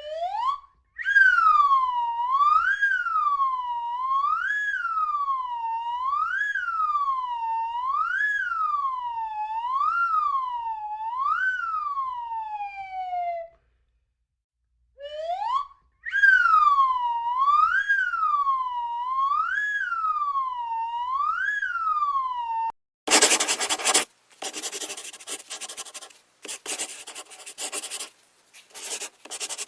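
A wailing siren sound, one tone sweeping up and down about every second and a half to two seconds. It sounds twice with a short break between, sliding down in pitch as the first run ends. About 23 seconds in it gives way to the scratchy strokes of a drawing tool on paper.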